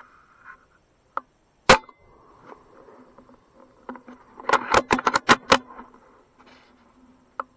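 Suppressed .22 FX Impact M3 air rifle firing, a sharp crack not quite two seconds in. Around the middle comes a rapid run of about seven sharp cracks within a second, and there are fainter single clicks before and near the end.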